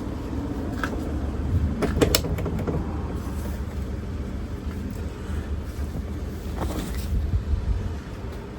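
A vehicle engine idles with a steady low rumble. A few sharp clicks and knocks come about a second in, around two seconds in, and near the end, as small plastic door clips are handled and pressed into a truck door.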